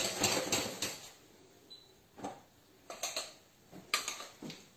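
A metal spoon scraping and clinking against a small stainless-steel saucepan, in short bursts: a flurry in the first second, then a few single knocks spread through the rest.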